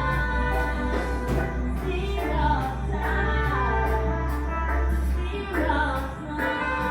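Song with singing over a band with a steady bass line and a regular beat.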